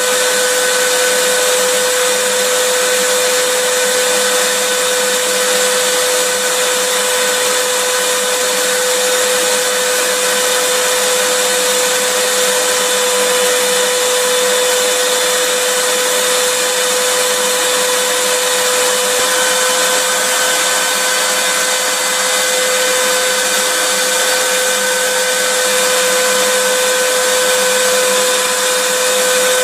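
Vacuum cleaner running steadily: a dense rushing hiss with a steady high whine from its motor, played as white noise to soothe a baby.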